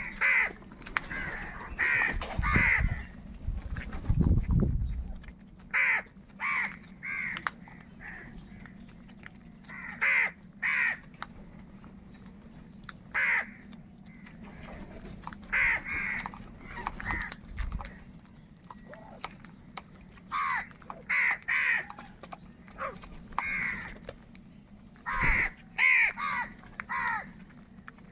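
Several crows cawing: short, harsh calls in ones, twos and threes, repeated every second or two. A low rumble comes in a few seconds in.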